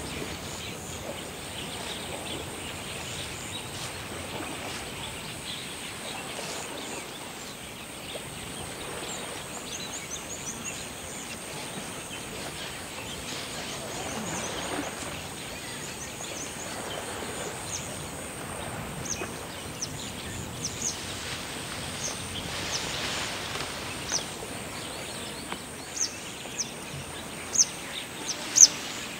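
Wild grassland ambience: a steady high insect whine with birds calling, and from partway through a run of short sharp high chirps that grow louder, the loudest near the end.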